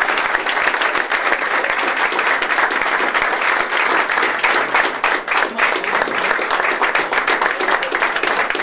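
Small group applauding by hand, dense at first and thinning after about five seconds to scattered separate claps.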